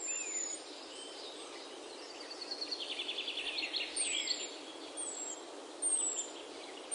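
Birds chirping over a steady hiss: short high whistles that fall in pitch, one every second or so, and a quick run of chirps about three seconds in.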